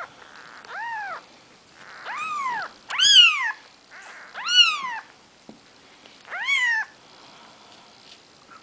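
Four-day-old Maine Coon kittens mewing: five short cries, each rising then falling in pitch, the loudest about three seconds in.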